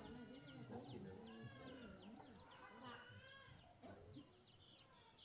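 Chickens clucking faintly in a run of short low calls, with many quick high peeping chirps over them.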